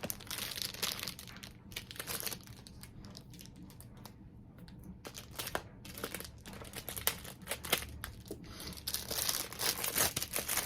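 Mailed gift packaging being handled and opened: irregular crinkling and rustling with some tearing, quieter for a few seconds in the middle, then busier again near the end.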